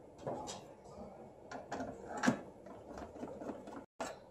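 Small clicks and knocks of screws and a screwdriver being picked up and handled against a machine's plastic cover as it is screwed back on, the loudest knock a little past two seconds in.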